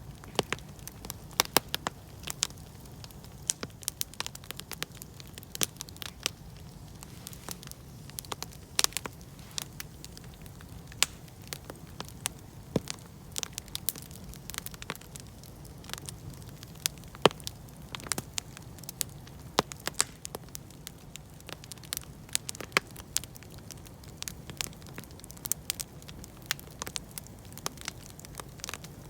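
Wood campfire crackling, with many irregular sharp snaps and pops over a low steady hum.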